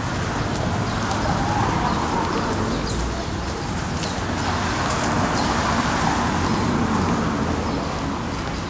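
City street traffic: a steady hum of car engines and tyres on asphalt, swelling twice as vehicles pass close by.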